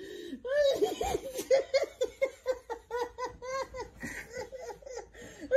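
A person laughing hard: a long run of quick, high-pitched giggles, several each second.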